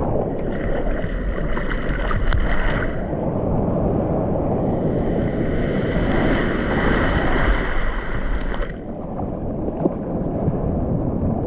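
Sea water rushing and splashing around a surfboard's nose, with wind buffeting the microphone of an action camera mounted on the board. The hissing rush grows stronger for a few seconds near the start and again through the middle.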